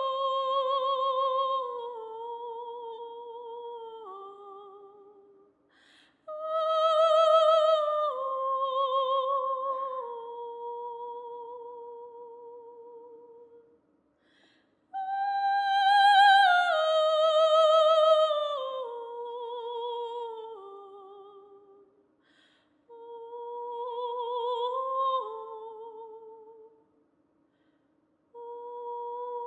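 Solo soprano voice singing slow phrases with a wide vibrato. Each phrase starts high and steps down in pitch, with short breaths between them, and a new phrase begins near the end.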